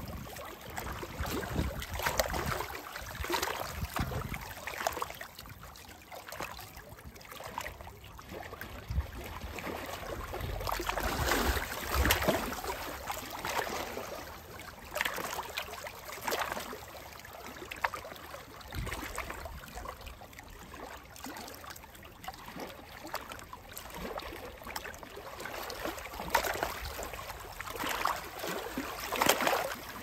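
Small lake waves lapping and splashing against shoreline rocks, swelling and fading in uneven surges every few seconds.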